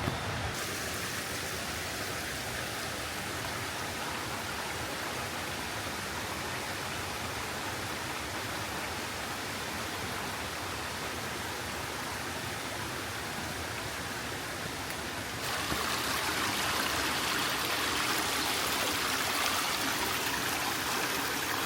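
A rocky jungle stream rushing steadily, an even hiss of flowing water that grows louder about three-quarters of the way through.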